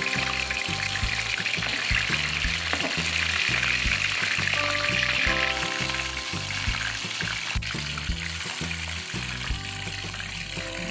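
Beef kofta meatballs deep-frying in hot oil in a steel karahi, a steady hissing sizzle that is louder in the first half and fainter later. Background music with a steady bass beat plays over it.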